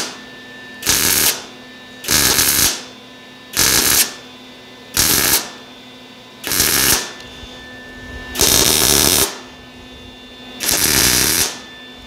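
MIG welder stitch-welding a steel tube one dot at a time: seven short bursts of arc, each about half a second to a second long, with pauses of about a second between them.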